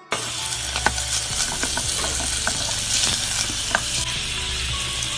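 Food sizzling in a hot pan while being stirred, a dense steady hiss with scattered sharp pops and utensil clicks. A low steady hum runs underneath.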